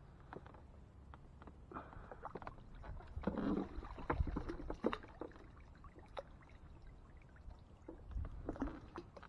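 Water splashing and dripping as a wire crab trap is hauled up by its rope and breaks the surface beside the boat, loudest from about three to five seconds in, with scattered light clicks and knocks.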